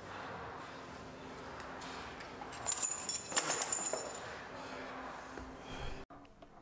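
Small metal pieces jingling and clinking for about a second and a half, starting a few seconds in, over a steady low hum.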